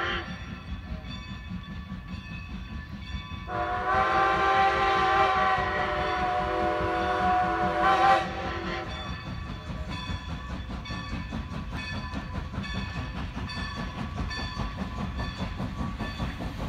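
Steam locomotive working past with a steady low rumble. About three and a half seconds in, its steam whistle sounds one long blast of about five seconds. Then the passenger cars roll by with a rhythmic clatter of wheels.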